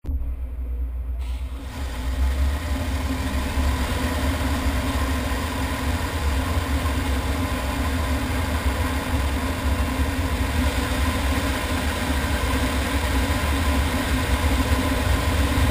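Engine of a large harvest machine running steadily with a deep low rumble, a little quieter for the first two seconds.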